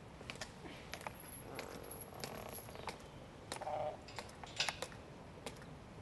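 Scattered sharp clicks and taps at an irregular pace, two or three a second, with a brief faint pitched sound a little past halfway.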